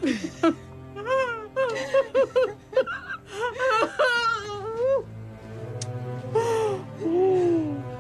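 Women laughing, the laughter breaking into wailing sobs, over a low, sustained music drone.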